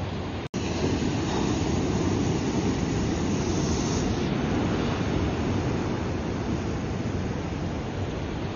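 Ocean surf breaking and washing ashore, a continuous rushing wash of water. The sound cuts out for an instant about half a second in, then returns a little fuller.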